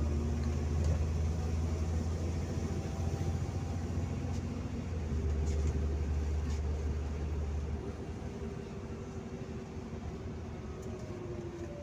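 Interior of a city bus on the move: engine and road rumble with a deep drone that drops away about eight seconds in as the bus nears its stop.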